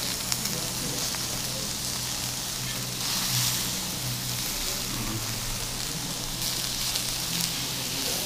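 Meat and sausages sizzling on a hot granite cooking stone, a steady crackling hiss that swells for a second or so about three seconds in.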